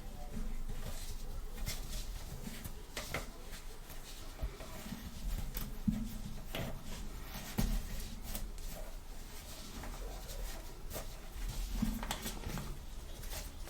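Small plastic toy playset pieces being handled, with irregular light clicks and taps and a few soft knocks scattered throughout.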